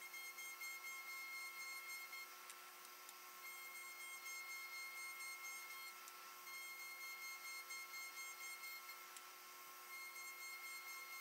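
Table-mounted router spinning a small abrasive sanding drum with a quiet, steady whine over a light hiss, as a wooden toy wheel is pressed against the drum to sand it. Some upper tones of the whine drop out briefly a few times, and a few faint clicks sound.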